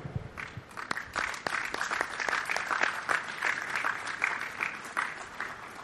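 Crowd applauding, the clapping fading away toward the end.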